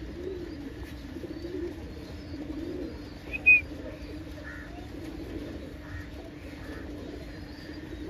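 Domestic pigeons cooing in low, rolling phrases, with one short high chirp about halfway through.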